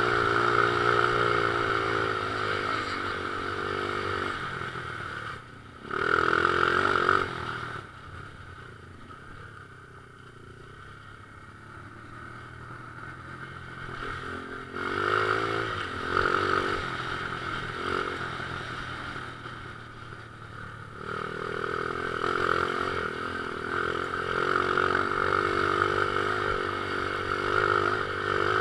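Pit bike engine being ridden on a dirt track, the revs rising and falling with the throttle. There is a short burst of throttle about six seconds in, then several seconds of low revs. The revs pick up again and hold high near the end.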